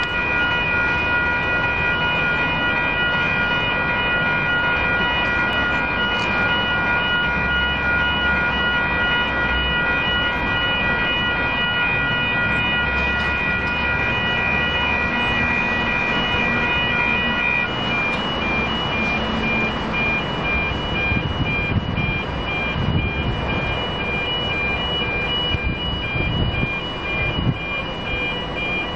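Railway level crossing warning bells ringing steadily, an electronic alarm of several high tones. About two-thirds of the way through, some of the tones drop out and the ringing carries on thinner. A low rumble comes and goes near the end.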